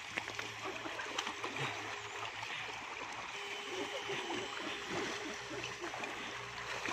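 River water splashing and running, with many small irregular spatters over a steady rushing noise and a faint low hum.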